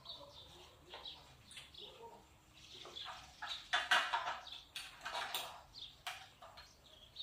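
Spoons clinking and scraping against soup bowls during a meal, in scattered short clicks, with a louder spell about four seconds in.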